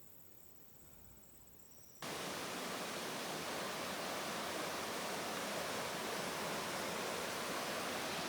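Faint high insect buzz, then about two seconds in a steady rush of running water from a small stream starts suddenly and goes on evenly.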